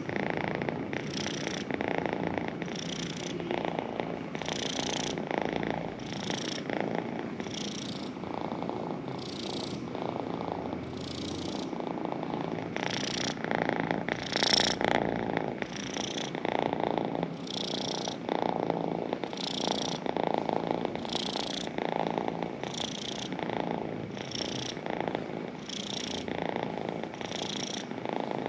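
A young cat purring steadily while being stroked, the purr swelling and easing about once a second.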